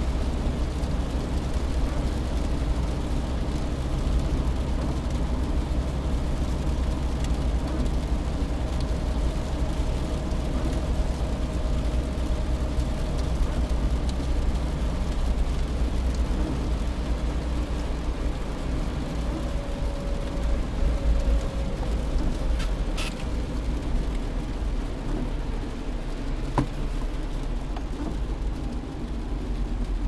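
Car driving at about 60 km/h in rain, heard from inside the cabin with the windows closed: a steady low road and engine rumble under an even hiss of rain and wet road. A brief sharp click sounds about 23 seconds in.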